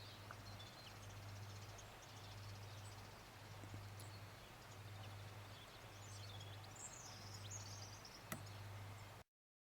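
Faint outdoor ambience: a steady low rumble with small birds chirping now and then, most around two-thirds of the way through. One sharp click sounds near the end.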